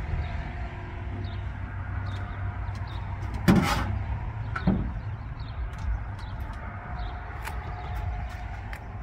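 Trigger spray bottle squirting water onto the propane regulator's connections in a leak check: one sharp spray about three and a half seconds in and a shorter one about a second later, with small clicks and handling noise over a steady low rumble.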